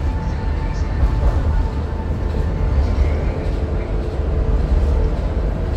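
Ocean Express funicular train running downhill, heard from inside the carriage as a steady low rumble.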